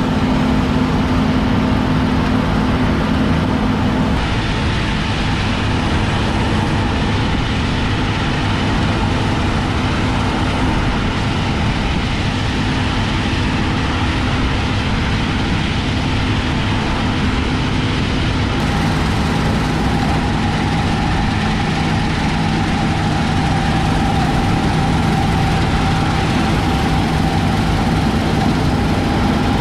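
Combine harvester running steadily while cutting wheat: a constant engine and machinery drone whose pitch shifts slightly about four seconds in and again past the middle.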